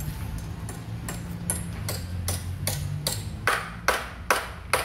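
Hammer striking wood, nailing a timber pergola beam to its wooden post: about eleven even blows, roughly two and a half a second, growing louder toward the end.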